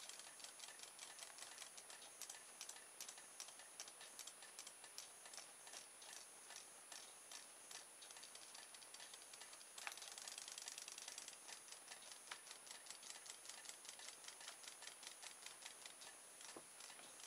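RoboFish robot fish toy swimming with its home-made tail, its tail mechanism ticking faintly and evenly at about four clicks a second. About ten seconds in there is a brief, slightly louder stretch of faster rattling.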